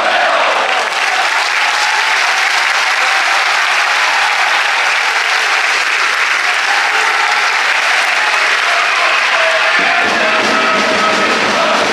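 Football crowd in a stadium applauding steadily, dense clapping from many hands, with voices starting to sing near the end.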